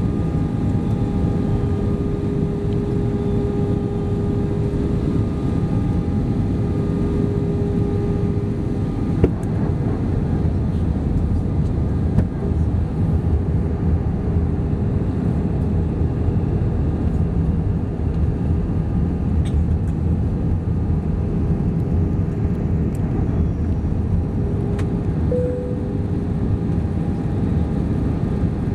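Cabin noise of an Airbus A320-232 on approach with flaps extended: a steady rush of engine and airflow noise, with a steady hum that fades out about a third of the way in and a couple of light clicks.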